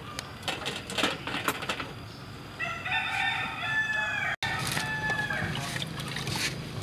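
A rooster crowing, one long call starting about two and a half seconds in, after a few light clinks of metal cooking utensils.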